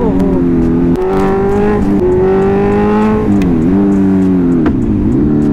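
Kawasaki Ninja 1000 inline-four engine pulling hard through the gears, its pitch climbing and dropping at shifts about one and two seconds in. Past the middle the revs fall and rise twice as the throttle is rolled off and blipped, with sharp exhaust backfire pops near the end.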